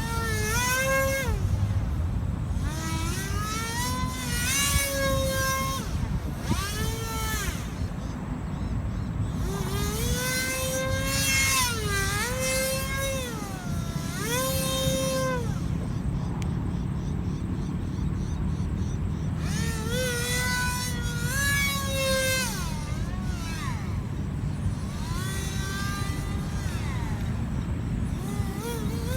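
RC paramotor's motor and propeller whining, its pitch repeatedly rising and falling with the throttle and fading in and out as it flies about. Wind rumbles on the microphone throughout.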